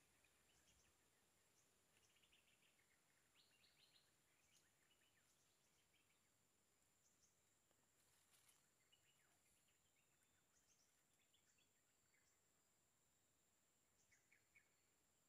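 Near silence, with faint, scattered bird chirps and a steady high, thin insect-like whine.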